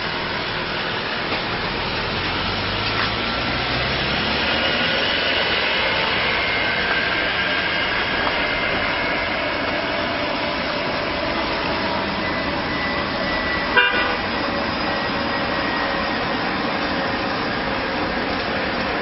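Steady city road traffic: cars passing on a wet road, their tyres hissing, with one sharp click or knock about fourteen seconds in.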